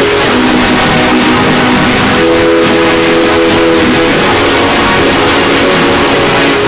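Deliberately overdriven, clipped electronic 'earrape' sound: a very loud, harsh wall of distortion with a held chord of low tones that moves to new pitches about every two seconds.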